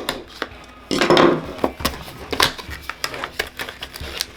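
A boxed set of plastic keycaps being opened and handled: a rustle of packaging about a second in, with many light clicks and clatters of hard plastic.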